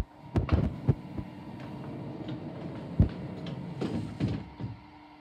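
Printing press machinery running with a steady hum. Irregular mechanical clunks and clicks sound over it, several in the first second, one about three seconds in and a cluster near four seconds.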